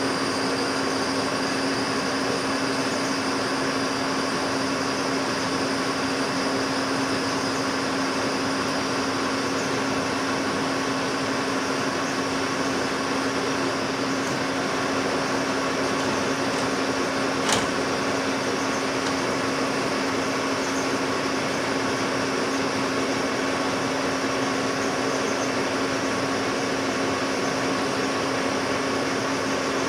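Metal lathe running steadily, its spindle turning a trailer jack screw being turned down to diameter: a constant machine hum with a steady low tone. One sharp click about seventeen seconds in.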